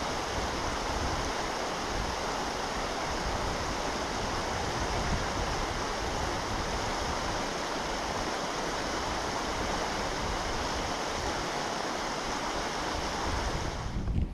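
Steady rushing of a hill burn, running water, with uneven low rumbling from wind on the microphone.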